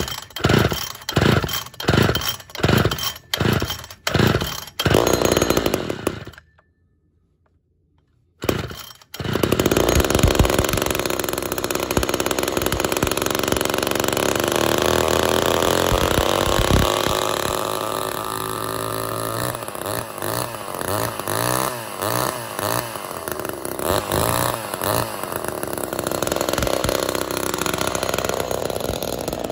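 Ported Poulan 245a two-stroke chainsaw running, steady at first, then its pitch wavering up and down about once a second in the second half. It is preceded by a few seconds of music with a steady beat and a short silence.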